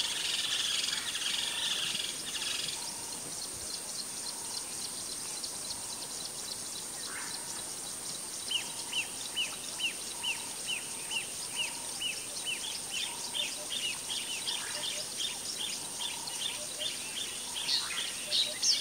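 Wild birds calling in the African bush over a steady high insect buzz: a warbling call at the start, then from about halfway a long run of short repeated chirps, about two a second.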